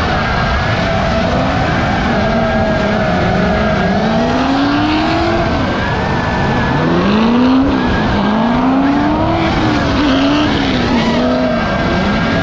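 Drift car engine revving hard, its pitch climbing and dropping in repeated surges every second or two, over the steady rush of tyres sliding.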